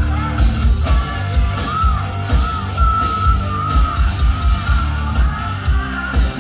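Hard rock band playing live: electric guitars, bass guitar and a steady kick-drum beat, under a male lead singer's high, held notes that waver in pitch.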